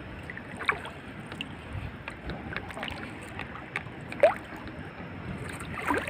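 Shallow water sloshing and splashing around feet wading over a rocky shore, with scattered small clicks and knocks. There is a short rising chirp about four seconds in.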